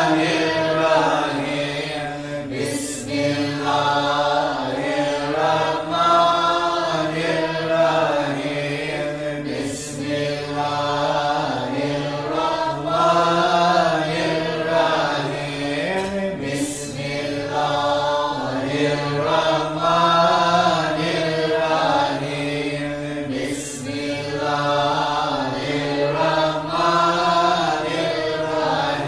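Devotional Sufi chanting: voices sung in long, slowly bending phrases over a steady low drone, with a short hiss about every seven seconds.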